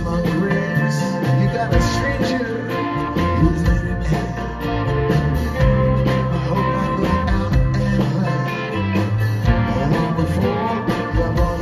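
Live rock band playing: drums, guitars and mandolin, with a man singing, heard from the audience in a concert hall.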